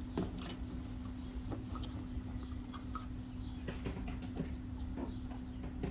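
Scattered light clicks and taps of small parts being handled during wiring work, over a steady low hum.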